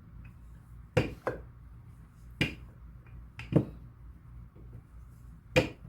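Sharp taps and knocks on a kitchen work surface while pie crust is being flattened out, about five of them spaced irregularly a second or so apart, over a faint steady low hum.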